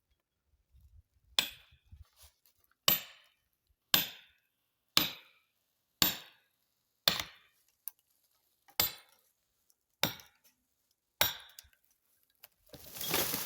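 A hammer driving a felling wedge into the saw cut of a red oak trunk: nine sharp strikes about one a second, each with a short ring. A brief burst of rustling noise comes near the end.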